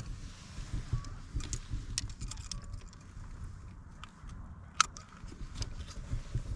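Handling noise while weighing a fish on a kayak: scattered small clicks and taps, with one sharper click a little under five seconds in, over a low wind rumble on the microphone.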